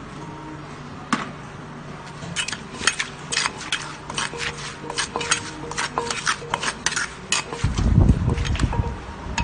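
A spoon clicking and scraping against the mortar and pestle as shredded green papaya for som tam is mixed and pounded, in quick irregular strokes about three or four a second. Near the end come a couple of seconds of heavy low thuds.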